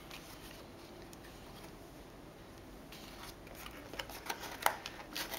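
Cardboard mouse packaging insert being handled, with soft scrapes and a few light taps and clicks that come mostly in the second half.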